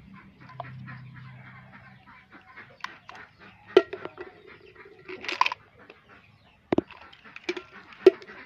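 Small plastic toy trucks being handled: scattered sharp clacks and knocks as they are picked up and set down on a bucket lid, with a short animal call about halfway through.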